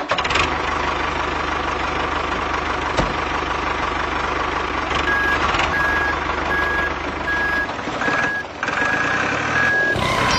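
Diesel tractor engine running with a steady low chugging, joined about halfway through by a reversing alarm beeping about twice a second.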